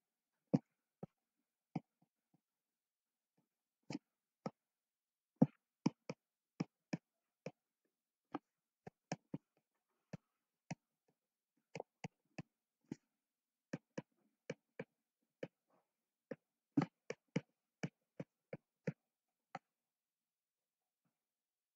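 Stylus tapping and clicking on a tablet screen while handwriting, a few dozen short sharp clicks at an irregular pace with near silence between them, stopping shortly before the end.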